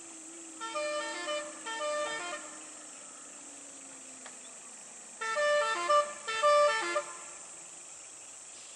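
A lorry's musical horn sounding a short run of stepped notes in two quick blasts about a second in, then again, louder, about five seconds in. A steady high insect hiss runs behind it.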